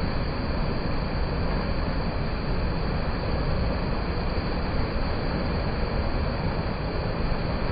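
Mountain stream rushing steadily over rocks, a continuous full, even water noise strongest in the low end.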